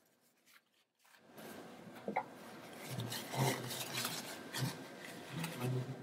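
Paper tissue rubbing and scraping as a gloved hand wipes clean the cup and bob of a Lorrca MaxSis red-cell deformability analyser: irregular scratchy wiping strokes that start about a second in.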